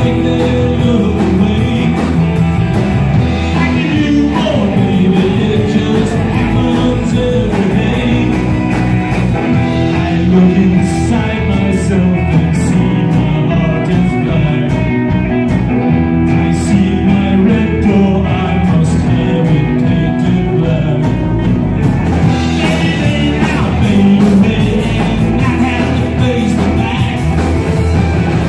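Live rock band playing loud through a PA: electric guitars, electric bass and drum kit, with a lead vocal.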